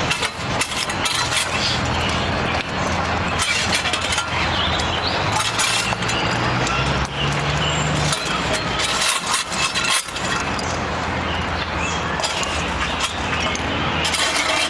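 Metal fire shovel scraping across the brick hearth and shifting burning coals under a pan of oil, with many clinks and crackles of coals and ash, done to bring up the heat under the oil.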